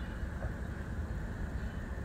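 Steady low rumble of background noise, with no distinct sounds standing out.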